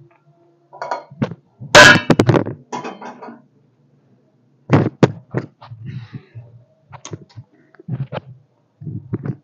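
A run of sharp knocks and clatters from kitchen items being handled beside the stove, the loudest about two seconds in, another cluster about five seconds in, and smaller knocks after.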